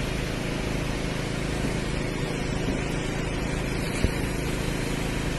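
A steady low rumble with a constant hum and hiss, and one sharp click about four seconds in.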